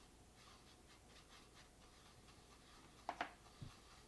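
Faint, soft scrapes of a small paintbrush swirling acrylic paint on a plastic plate, then two sharp clicks and a soft knock about three seconds in.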